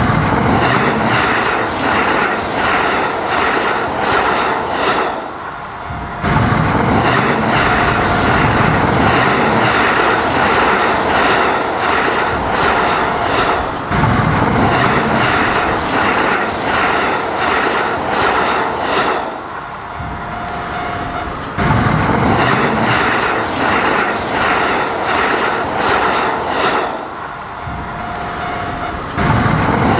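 Kintetsu electric train running on its rails, with a steady rhythmic clickety-clack of wheels over the rail joints and a few brief dips in loudness.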